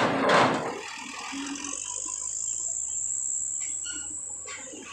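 Trucks rolling off a ferry onto the steel ramp: a loud clank as wheels cross the ramp plates at the start, then a thin, steady high-pitched whine for about three seconds over a low engine rumble.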